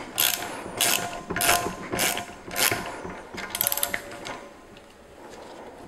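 A 13 mm ratcheting wrench clicking through short strokes, nearly two a second, with a quick run of clicks about three and a half seconds in, then stopping. It is turning the nut of a valve spring compressor on a BMW S52 cylinder head, pressing the valve springs down.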